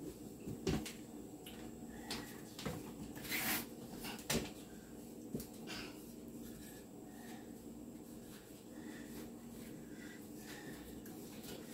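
Scattered light knocks and clicks of a plastic box fan being handled and taken apart, over a faint steady hum.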